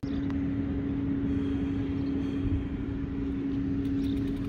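A steady motor hum at one unchanging pitch over a low rumble.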